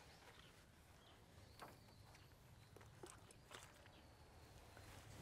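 Near silence: faint outdoor background with a few soft, scattered ticks.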